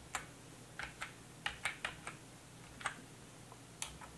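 Computer keyboard keystrokes as a password is typed in at a Raspberry Pi login prompt: about ten sharp key clicks at an uneven pace, several in a quick run about halfway through.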